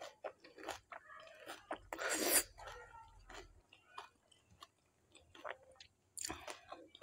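Close-up chewing of a mouthful of panipuri, crisp puri shells filled with spicy water: wet crunching and mouth clicks, with two louder rushes of noise, about two seconds in and again near the end.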